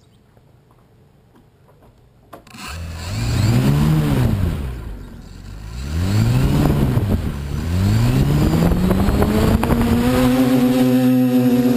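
DJI F450 quadcopter's four electric motors and propellers spinning up from rest with a click about two seconds in. The whine rises and falls twice as the throttle is blipped, then climbs to a steady, higher pitch as the quad lifts off near the end.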